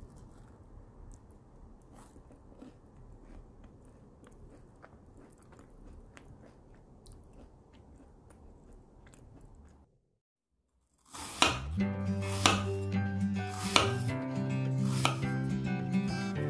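A knife cutting food on a cutting board, many small quick taps, stopping about ten seconds in. After a brief silence, acoustic guitar music starts, louder than the cutting.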